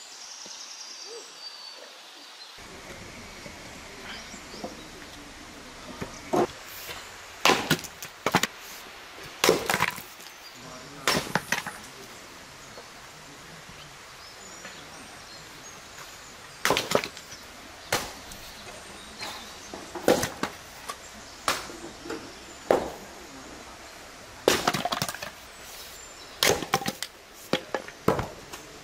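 Axe blows splitting firewood: sharp wooden chops and cracks as the blade bites into the logs and they split. There are a dozen or so, spaced irregularly a second or more apart, starting a few seconds in.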